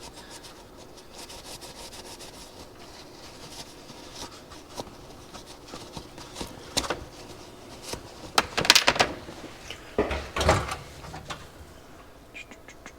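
Workbench handling sounds: scattered light clicks and rubbing as parts and materials are picked up and moved, with a louder clatter about eight and a half seconds in and a knock about ten and a half seconds in.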